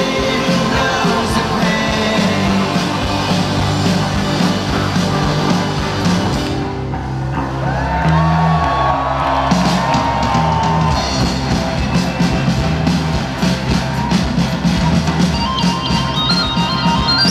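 Live rock band playing through a festival PA, heard from within the audience: drums and electric guitar, with a high line of notes climbing in steps near the end.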